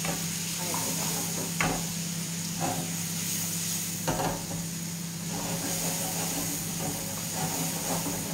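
Diced pear sizzling steadily as it sautés in browned butter in a frying pan, with a few sharp knocks of a wooden spoon against the pan as it is stirred.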